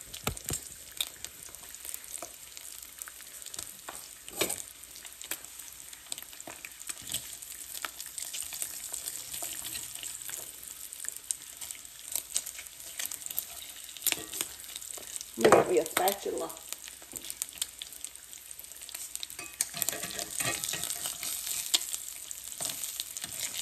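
Bacon sizzling in a cast-iron skillet, a steady hiss, with scattered clicks and scrapes of a fork turning the strips against the pan. A brief louder noise comes about two-thirds of the way through.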